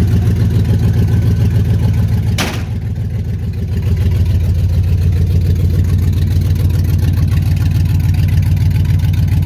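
2005 Dodge Ram's 4.7 Magnum V8 idling steadily with a raw, pulsing exhaust note; the truck needs exhaust work and a muffler. A single sharp knock about two and a half seconds in.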